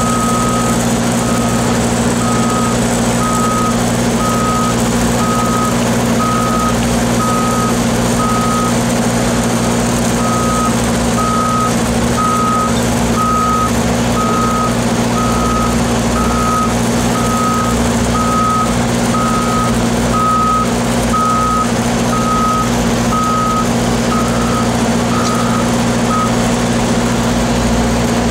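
Vehicle reversing alarm beeping about once a second, pausing briefly and stopping near the end, over the steady drone of running engines.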